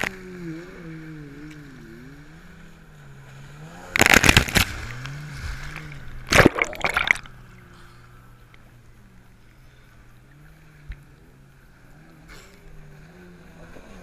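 Jet ski engine running, its pitch rising and falling as it carves around, with two loud rushes of splashing water spray about four and six and a half seconds in.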